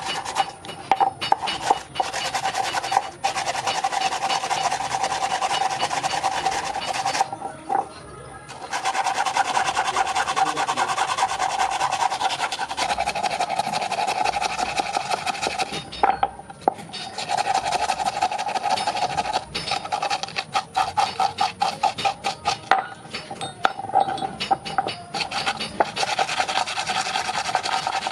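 Steel of a forged S hook being scraped with an abrasive, a continuous rasping with a steady ringing tone and small irregular clicks. It pauses briefly twice, about 7 and 16 seconds in.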